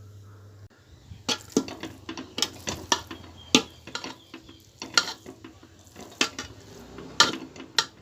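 A metal utensil clinking and scraping against a cooking pot, about a dozen sharp, irregular knocks.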